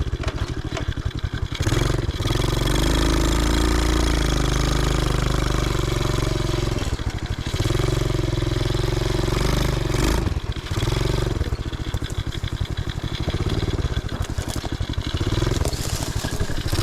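Small 125cc single-cylinder engine of a custom reverse-trike ATV running under way, its note rising and falling as it is ridden, with brief dips about two, seven and ten seconds in.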